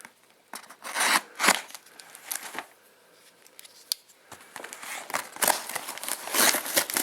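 A folding knife slicing through a package's tape and wrapping, then the packaging crinkling and rustling as it is pulled open. There are a few short scratchy strokes early, and the rustling grows louder and busier over the last couple of seconds.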